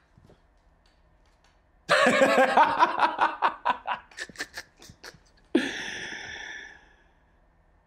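A man laughing hard. The first burst comes about two seconds in and breaks into shorter and shorter 'ha' pulses, then a last breathy laugh trails away.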